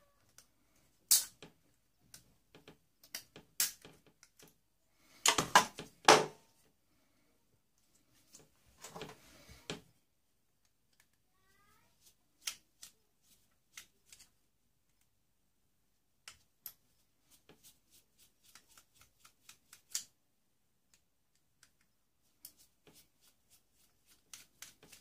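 Scattered clicks and clatters of small plastic and metal boombox parts being handled and pulled apart, with a louder cluster of knocks about five to six seconds in.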